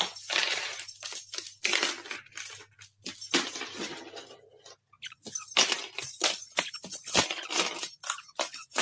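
A rapid, irregular series of sharp clinks and knocks from hard objects being struck or knocked about.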